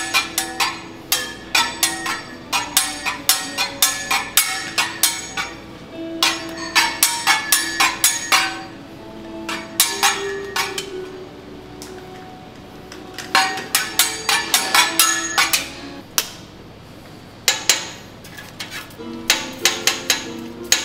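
Metal teppanyaki spatula tapping and clacking on the steel griddle in quick rhythmic runs of several strikes a second, broken by short pauses. Background music runs underneath.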